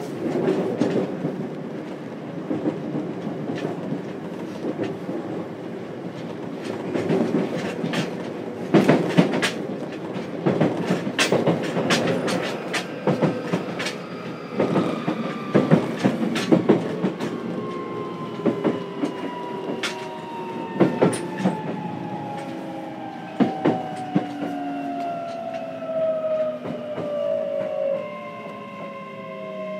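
Running sound inside the motor car of a JR Kyushu 303 series electric train: wheels clacking over rail joints over a steady rumble. From about halfway, the whine of the Toyo IGBT VVVF inverter and traction motors falls steadily in pitch as the train slows.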